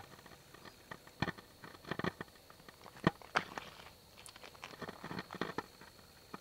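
Footsteps crunching over loose river-bank cobbles and gravel, uneven steps with stones clicking and grinding underfoot.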